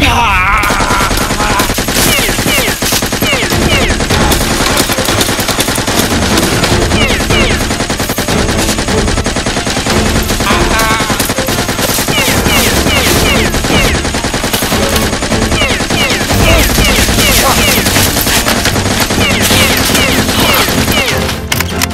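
Rapid automatic machine-gun fire, a dubbed-in gunfire sound effect, with shots packed closely in long unbroken bursts.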